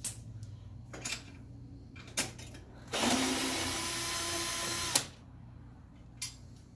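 A cordless drill running steadily for about two seconds, starting about three seconds in, as it spins a bolt, and ending with a sharp click. A few light knocks and clicks of handling metal and plastic parts come before it.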